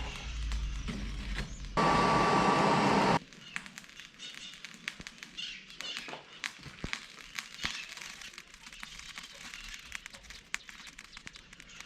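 An electric power tool with a motor whine runs steadily for about a second and a half, then stops abruptly. Scattered small clicks and ticks of handwork follow.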